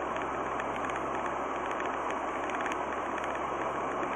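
Steady road and engine noise of a car driving at about 60 km/h on a wet, slushy road, heard from inside the cabin through the dashcam.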